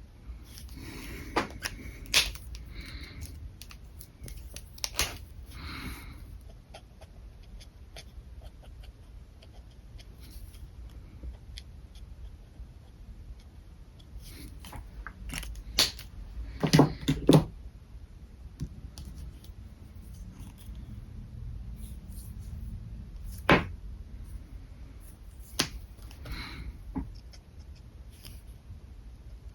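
Alcohol marker caps clicking off and on with sharp plastic snaps, a few at a time, between short stretches of marker tips scratching across paper.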